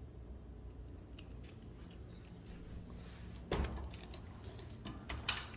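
Hand sanding block wrapped in 100-grit sandpaper scraping against a wooden beam: faint room hum at first, then one scratchy rub about three and a half seconds in, followed by a few short scratches and a sharp click near the end.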